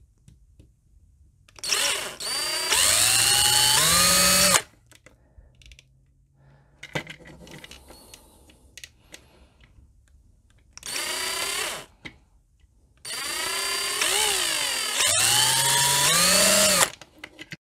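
Handheld power drill run in three bursts: one of about three seconds, a short one, then a longer one. Its motor whine rises and dips in pitch as it drills a broken plastic stub out of a toy's socket.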